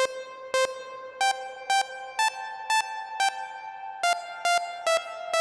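Synthesizer notes from SunVox's Analog Generator through a reverb module, played one at a time about twice a second. Each note starts sharply and rings on, and the pitch steps up and down as a short melody is keyed in.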